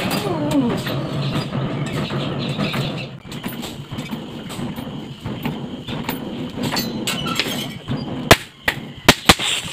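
Steady rushing noise of a coal forge fire with light clinks of tongs, then, about eight seconds in, a few sharp hammer strikes on hot steel on an anvil.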